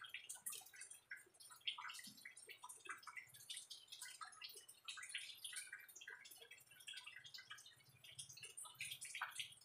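Faint, wet chewing and lip-smacking of someone eating sliced green mango: many short, irregular clicks and smacks.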